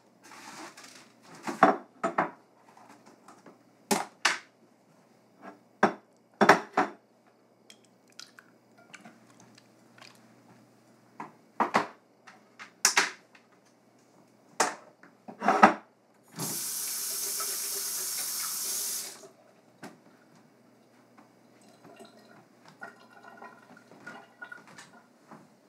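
Dishes knocking and clinking in a kitchen sink, a string of sharp clatters, then the tap runs for about three seconds and is shut off, followed by a few faint clinks.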